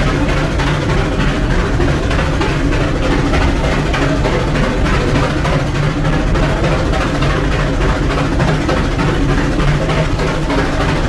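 Rack-railway steam locomotive puffing in a steady rhythm as it works its train up the mountain.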